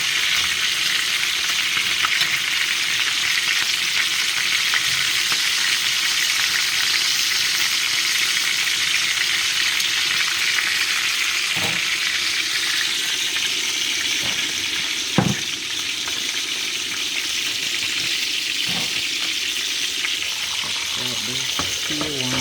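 Seasoned chicken pieces sizzling steadily as they brown in hot oil in a pot, with a few sharp knocks, the loudest about two-thirds of the way through.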